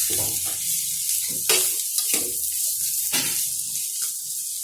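Potato and pea stuffing sizzling in hot oil in a pan as it is stirred, with a steady frying hiss and several scraping knocks of the stirring utensil against the pan.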